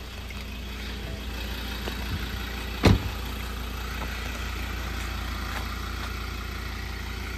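Ford Ranger 3.2 TDCi five-cylinder diesel engine idling steadily, with a single loud thump about three seconds in.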